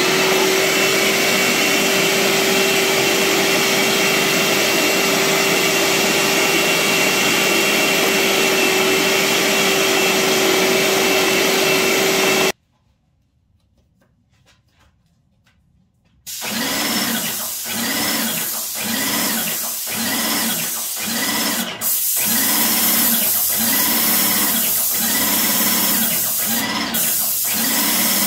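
Wagner Control Pro 250R airless paint sprayer's pump running steadily while priming, about twelve seconds, then stopping. After a few seconds' silence it runs again with a regular pulsing about once a second while paint is sprayed.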